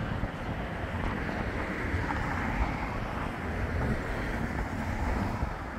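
Wind buffeting the microphone: a steady, gusty low rush.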